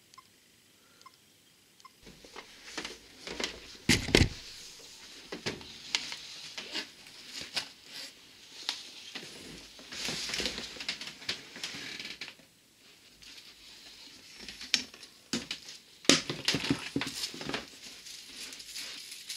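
Camera handling noise: rustling and scattered knocks as the camera is moved about and rubs against clothing, with a hard knock about four seconds in and another about sixteen seconds in. A few faint short beeps come before it, in the first two seconds.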